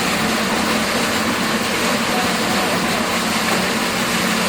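Cruise ship's engine running with a steady low hum under a constant rushing noise.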